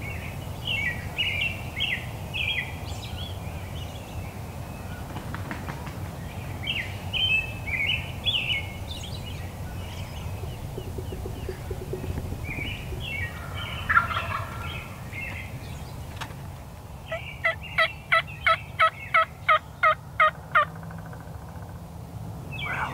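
Wild turkeys gobbling in several bursts. Near the end comes a run of about ten evenly spaced turkey yelps, about three a second.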